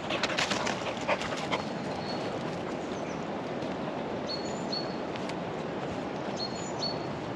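English springer spaniel running close past through dry leaf litter, a quick patter of rustling footfalls and panting in the first second and a half. A small bird chirps in short high pairs twice in the second half, over a steady outdoor rush.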